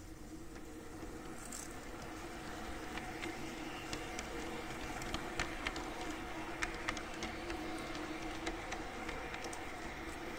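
Garden-railway model train running along its track: a steady electric motor hum that swells over the first few seconds as the train gets under way, with sharp clicks of the wheels over the rail joints from about four seconds in.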